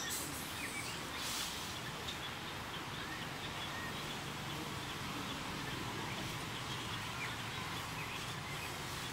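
Steady outdoor background noise with faint, scattered short high chirps, and a brief hiss about a second in.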